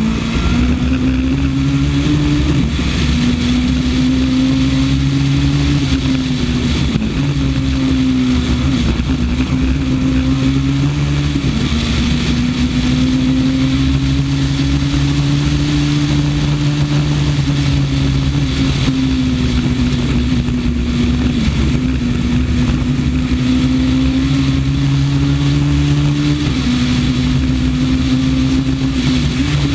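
Honda Civic rally car's four-cylinder engine running hard at speed. Its pitch drops and climbs back several times as it shifts through the gears, under a constant rush of road and wind noise.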